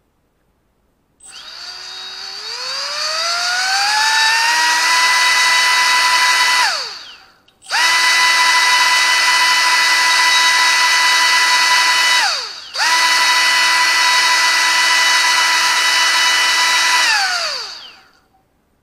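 Electric motor spinning the downforce fan of a 150 g antweight combat robot, a whine. About a second in it winds up, rising steadily in pitch to full speed and holding there. It then spins down and restarts twice, winding down for good near the end.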